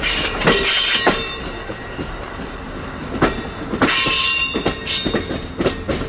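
Amtrak Silver Star passenger cars rolling past, the last being a Viewliner baggage car. The wheels click over rail joints and give a high-pitched squeal near the start and again about four seconds in.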